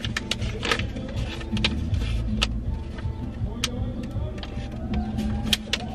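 A sheet of printer paper rustling and crackling as it is unfolded and handled, many short sharp crinkles over a low steady rumble inside a car.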